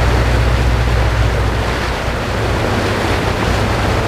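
Sportfishing boat's diesel engines running under way, a steady low rumble under the rush of the wake and wind buffeting the microphone.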